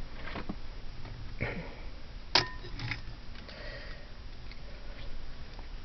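Costume jewelry being handled: soft rustles and light clicks of beads and small metal pieces, with one sharper metallic clink that rings briefly about two and a half seconds in.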